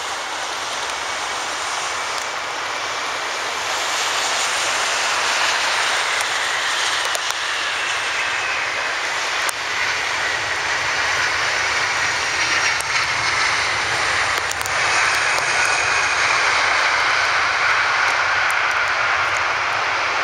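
McDonnell Douglas MD-11 trijet's engines running loud as it lands and rolls out, the sound swelling about four seconds in, with a high whine that falls slowly in pitch through the second half.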